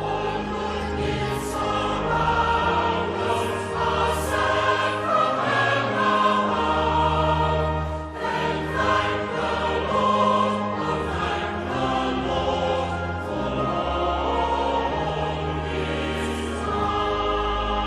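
A choir singing a slow hymn in held, sustained chords.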